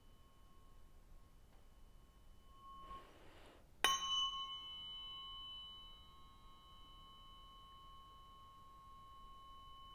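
Tuning fork struck about four seconds in: a sharp tap, then a bright ringing tone with several high overtones that fades to a steady ring. An earlier ring is already sounding softly, and a brief soft swish comes just before the strike.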